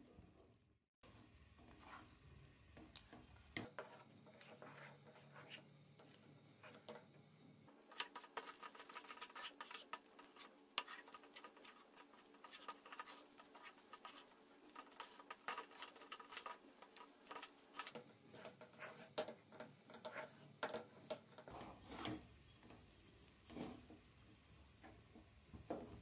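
Faint, irregular scraping and tapping of a spatula stirring thick rice-flour dough around a nonstick pan as the dough cooks and turns crumbly.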